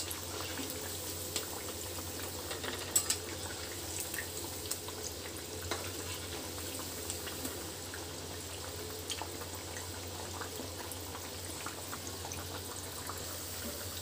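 Sabudana vadas deep-frying in hot oil in a wok: a steady bubbling sizzle. A few light clicks come from a metal slotted spatula touching the pan as the vadas are turned.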